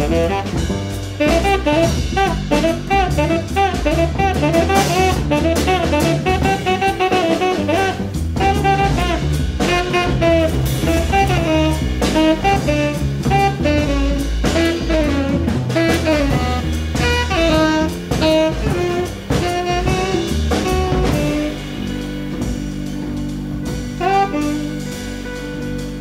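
Instrumental background music: a moving melody over a steady drum beat. About 21 seconds in, the drums drop out and the music settles into softer held chords.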